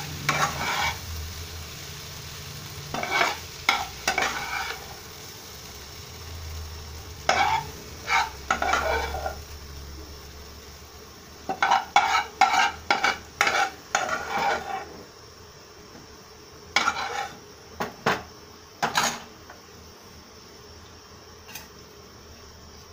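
Spatula scraping and scooping green banana fry around a non-stick kadai, in short bouts of quick strokes a few seconds apart, over a light sizzle from the hot pan.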